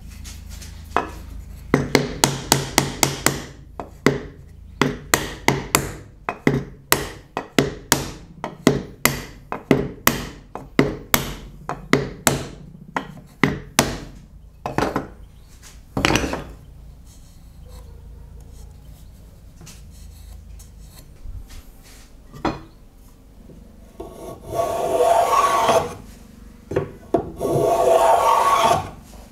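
A dovetail joint being knocked together: a long run of sharp wooden knocks, two or three a second, for most of the first half. Near the end come two spells of rasping hand-file strokes along the edge of a board held in a vise.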